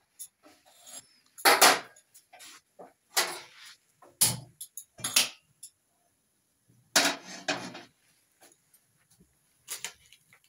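A steel karahi and kitchen utensils clattering and scraping on a gas stove in about seven short, separate knocks as the pan is set over the burner.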